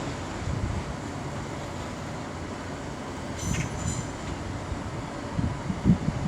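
Electric passenger train running through the station with a steady low rumble of wheels on rail. A brief high wheel squeal comes about three and a half seconds in, and a short thump near the end.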